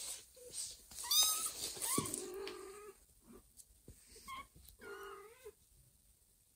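Kitten meowing several times, loudest and most shrill about a second in, with shorter calls later. It is unhappy at being moved by its mother.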